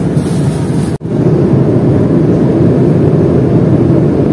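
Cabin noise of a jet airliner in flight: a steady, loud low rushing hum. It breaks off for an instant about a second in.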